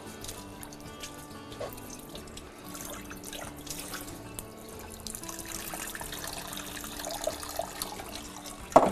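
Kitchen tap running water into a sink as fresh parsley is rinsed, with soft background music underneath. There is a sharp knock near the end.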